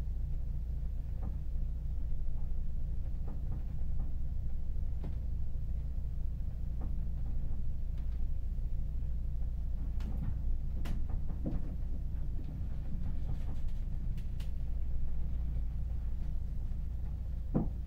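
Steady low drone of a ferry's engines and hull heard inside a passenger cabin at sea, with scattered faint clicks and creaks, one a little louder near the end.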